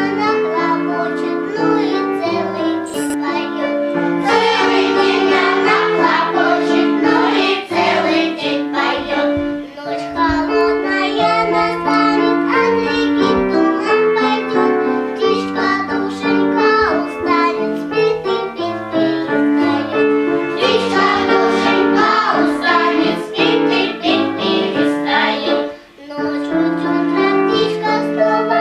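Children's choir singing a song over instrumental accompaniment, with a short break in the sound near the end.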